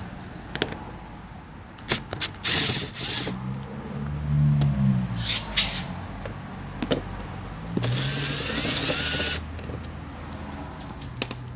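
Power drill-driver with a 6 mm socket on an extension, spinning out the two screws at the bottom of a Ford F-150 door panel. It runs in two short bursts: one about two seconds in and a steadier, whining run of about a second and a half near the end, with a few clicks of the tool being handled in between.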